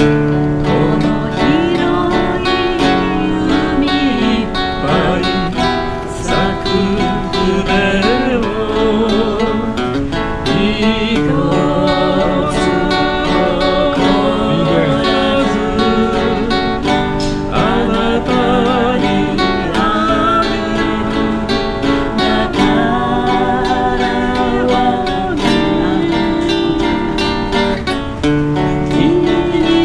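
A married couple singing a gentle 1960s Japanese folk song in two-part harmony, with a live acoustic guitar accompaniment.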